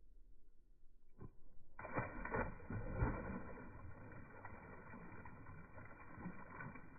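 Faint, muffled splash of a released summer flounder hitting the water, followed by dull water noise with no high end.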